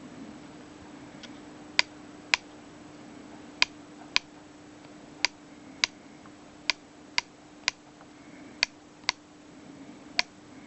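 Car rear heater blower motor running with a steady faint hum, broken by sharp ticking clicks, often in pairs about half a second apart: the motor's abnormal noise.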